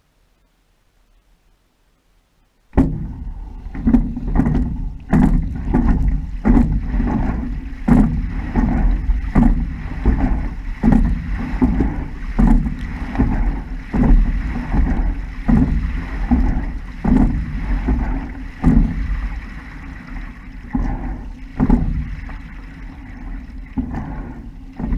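Single racing scull rowed from a standing start: the oars knock in their oarlocks at a regular rhythm with every stroke, over a steady rush of water along the hull. The sound begins abruptly about three seconds in, and the strokes come slightly further apart near the end.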